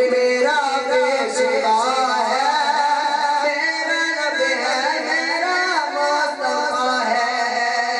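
A man's voice singing a naat, an Urdu devotional poem, unaccompanied into a microphone through a PA system, in long wavering, ornamented phrases.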